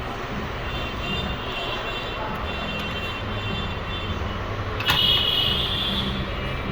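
Steady rumble of road traffic, with faint high tones coming and going and a sharp click about five seconds in, just after which the high tones are at their strongest.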